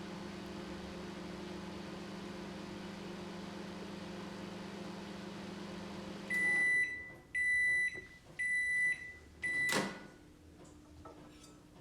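LG microwave oven running a test with its newly fitted magnetron: a steady hum that stops about six seconds in. Four high beeps follow, signalling the end of the cycle, then a sharp click near the end.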